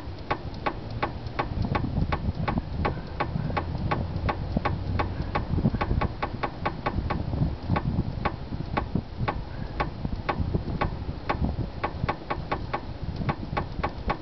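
A knock in the steering of a 2007 VW Polo as the steering wheel is jerked sharply: a fast, even series of sharp clicks, about three to four a second, over a low rumble. It is the sign of a loose steering joint that the owner takes for the tie rod, though he is unsure of the cause.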